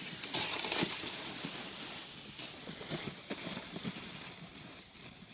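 Footsteps crunching on snow, a series of uneven soft steps, with a short rush of noise about half a second in.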